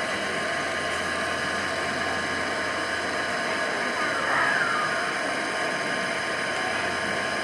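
Steady outdoor background din with a faint murmur of distant voices.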